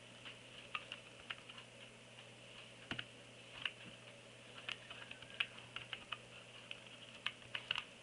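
Small plastic keys of a mini USB keyboard clicking as someone types slowly, in an irregular, halting rhythm of one to three keystrokes a second.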